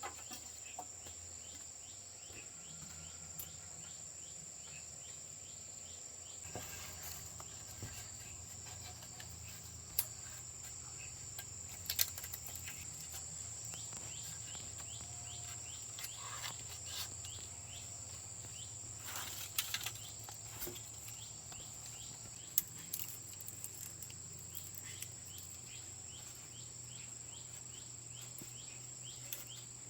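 Steady high-pitched drone of crickets or other insects, with a low hum beneath it. A few sharp knocks and clicks stand out over it, the loudest about ten and twelve seconds in and again around twenty and twenty-three seconds.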